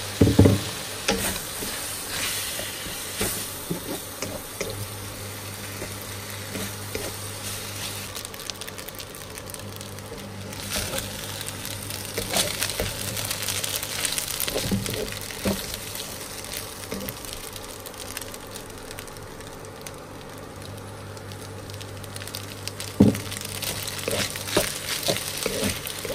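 Noodles and vegetables sizzling in a hot pan as they are stirred and tossed, the hiss swelling with each turn of the food, with occasional knocks of the utensil against the pan. A steady low hum runs underneath.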